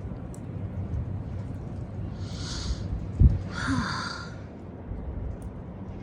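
A person breathing out twice in breathy, sigh-like exhales, with a short low thump between them, over a steady low rumble of wind on the microphone.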